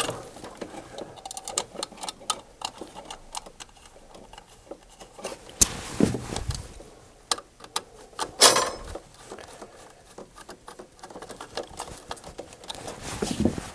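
Hands handling a sheet-metal control box cover and putting its screw back in: scattered light clicks and taps, with louder knocks about six seconds in and again about eight and a half seconds in.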